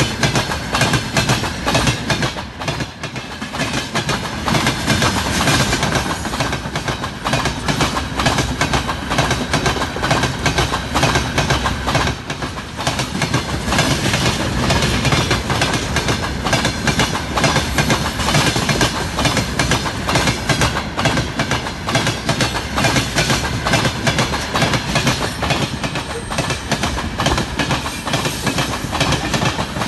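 Long freight train of open-top gondola wagons rolling past close by, its wheels clattering over the rail joints in a continuous rapid clickety-clack, with a thin steady high tone running through the clatter.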